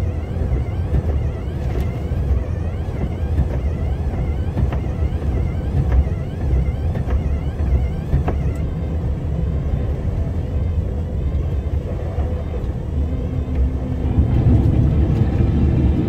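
Cab noise of a 600-horsepower snowplow truck: a steady low rumble from the diesel engine and drivetrain as it plows through drifting snow, growing louder for the last couple of seconds.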